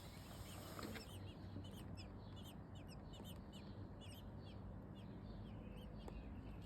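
Nestling birds chirping in their nest: a quick series of short, high chirps, several a second, starting about a second in and stopping near the five-second mark.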